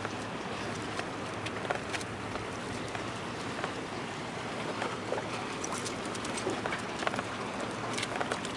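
Footsteps scuffing on granite boulders, with irregular gritty ticks and clicks, over a steady hiss of wind and water.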